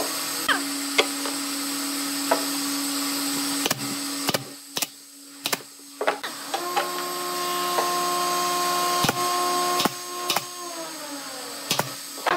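Scattered knocks and bumps of a wooden drawer being handled against a pine nightstand, over steady droning tones that change pitch about halfway through and slide downward near the end.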